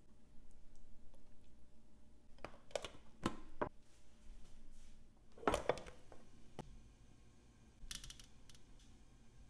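Kitchenware being handled, with a few sharp clicks and knocks. A glass baking dish of marinating chicken is covered and moved, the loudest knock coming about five and a half seconds in. Then there is a short clatter near the end as marinated chicken thighs are set on a metal wire rack over a sheet pan.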